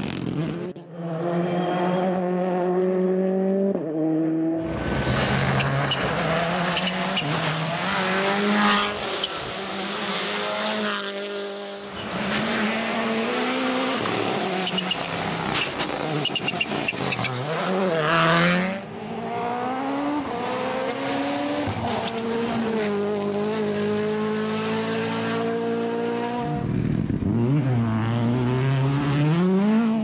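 WRC Rally1 cars driven flat out on a rally stage, several in succession: their turbocharged four-cylinder engines rev up and drop back through quick gear changes as each car passes. The sound cuts abruptly from one car to the next several times.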